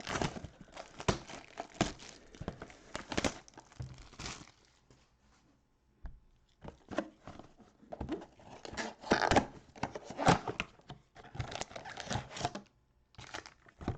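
Plastic and foil trading-card pack wrappers being torn open and crinkled by hand. The ripping and rustling come in two spells with a short pause between them, and a brief crinkle near the end.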